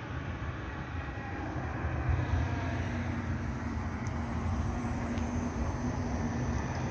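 Battery-electric articulated city bus driving past close by: low tyre and road rumble with a steady hum from its drive, which comes in about two and a half seconds in and grows louder as the bus passes.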